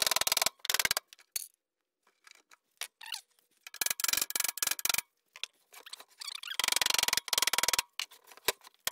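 Several short bursts of rapid rattling and scraping as a mobile base-station antenna's housing is knocked with a mallet and shifted on a wooden workbench, working the antenna array loose from its enclosure.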